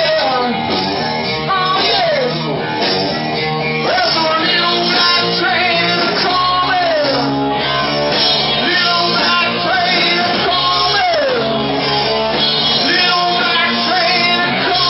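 Live rock band playing: electric guitars, bass and drum kit with a singer's voice, a falling slide in pitch coming round every couple of seconds.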